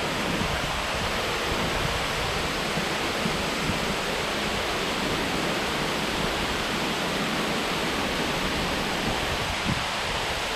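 Waterfall rushing: a steady, dense hiss of falling water.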